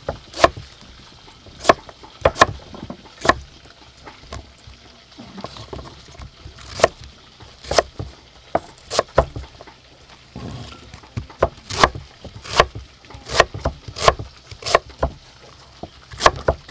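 Kitchen knife chopping a thick peeled white plant stalk into sticks on a wooden chopping block: sharp, irregular knocks of the blade striking the wood, about one or two a second, coming closer together in the second half.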